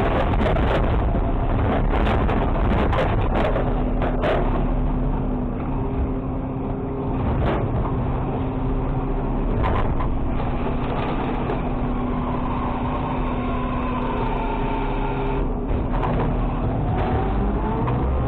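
Garbage truck (Mack LR600 with a Labrie automated side loader) running, its diesel engine and hydraulics loud and steady while trash lands in the hopper and the packer cycles. Clattering knocks of the load dropping in the first few seconds, a few more later, then a steady hydraulic whine that rises in pitch near the end.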